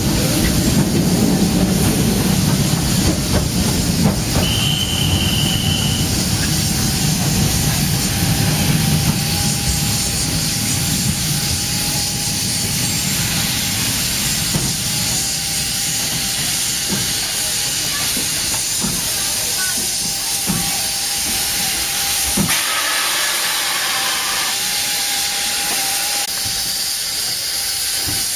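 A narrow-gauge steam train's coaches roll slowly past with a steady hiss of steam and a low rumble that fades after about twenty seconds. A faint steady whine runs underneath, with a brief high tone about five seconds in and scattered knocks of wheels over the track.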